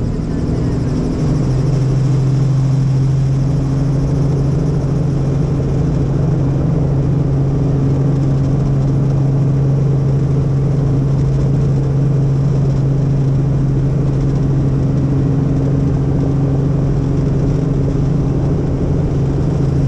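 Helicopter engine and rotor running steadily with a loud low hum, its pitch stepping up slightly about a second in and then holding level.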